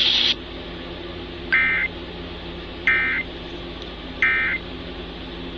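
Emergency Alert System end-of-message data tones: three short, identical warbling bursts about a second apart, closing a severe thunderstorm warning broadcast. A hiss of static cuts off just before them, and a low hum runs underneath.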